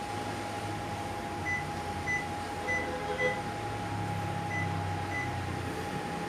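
Six short, high electronic beeps, in two groups (four, a pause, then two), over a steady hum with a constant tone.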